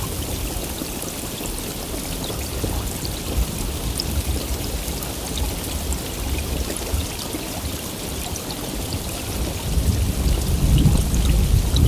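Heavy rain falling steadily, with scattered drop ticks. A low rumble of thunder swells in near the end.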